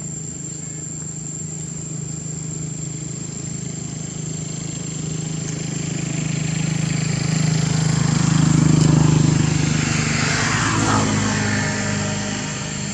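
A motor engine running steadily, growing louder to its peak about nine seconds in and then fading with a falling pitch, as something passes by.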